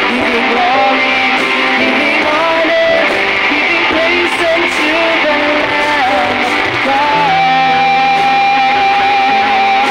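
Live worship band playing, with guitar and keyboard carrying the music. A melody line moves around and then holds one long wavering note from about seven seconds in.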